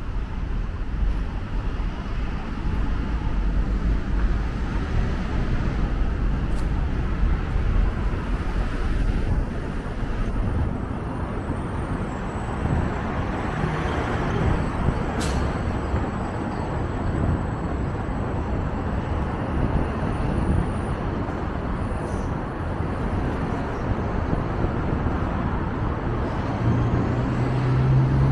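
Road traffic passing on a street: a steady mix of engine and tyre noise with a deep rumble. A low engine hum comes in near the end.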